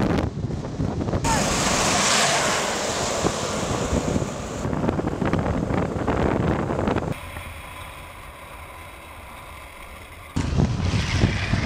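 Wind buffeting the microphone and longboard wheels rolling on asphalt at downhill speed, a steady rushing noise. It changes abruptly several times and drops to a quieter hiss for about three seconds in the second half.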